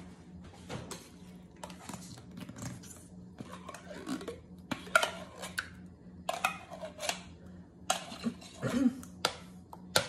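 Metal spoon scraping thick condensed cream of mushroom soup out of a tin can and clinking against a ceramic bowl: irregular scrapes and knocks, the sharpest about halfway through and near the end.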